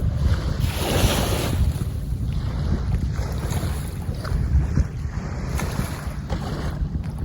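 Wind buffeting the microphone in gusts over the rushing water and waves of the Jamuna river.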